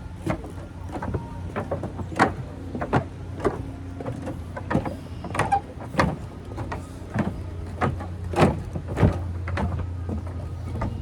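Footsteps on a floating bridge: a steady walking rhythm of thuds and knocks from the deck, about one or two a second, over a steady low rumble.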